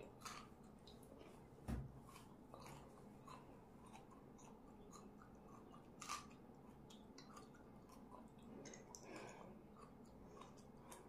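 Faint chewing: a person chewing food, with small wet mouth clicks. There is a low thump about two seconds in and a sharper click about six seconds in.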